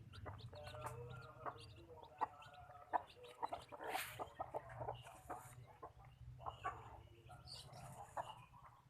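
Free-range village chickens (ayam kampung) clucking, many short calls overlapping one another.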